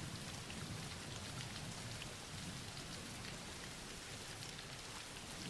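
Soft steady rain falling, with faint scattered drop ticks.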